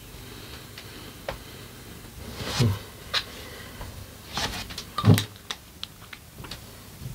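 A man's two short, sharp throat noises about two and a half seconds apart, with small mouth clicks and smacks between them, as he reacts to a mouthful of scorpion pepper hot sauce.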